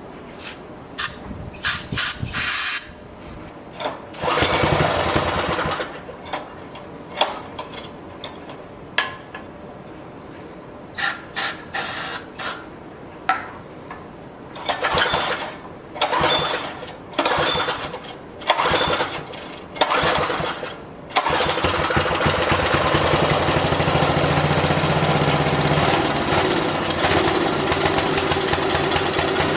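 Briggs & Stratton 5 hp flathead single-cylinder engine being pull-started: a series of short bursts from repeated recoil-starter pulls, then about two-thirds of the way in it catches and keeps running steadily.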